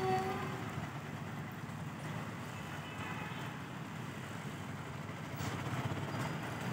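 Steady low rumble of an express train's ICF coaches running on the rails as the train draws away. A short pitched tone fades out in the first half second.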